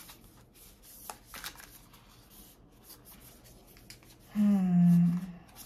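A deck of astrology cards being shuffled and handled: soft rustling with scattered light clicks of the cards. About four seconds in, a woman's voice briefly makes a drawn-out vocal sound.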